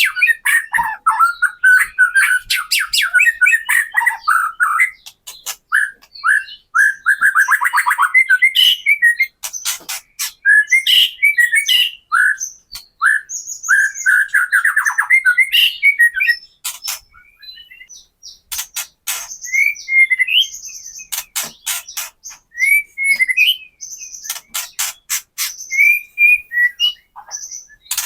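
White-rumped shama (murai batu) singing: runs of sharp rattling clicks, the 'kretekan' call, mixed with short whistled and trilled phrases.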